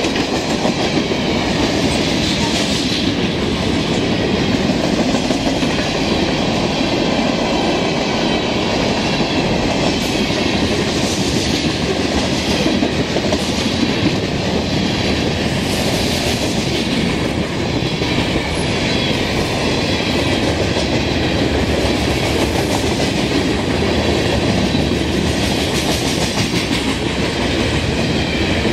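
Freight train tank cars and covered hoppers rolling past, steel wheels clattering over the rail joints again and again above a steady rumble and hiss of wheels on rail.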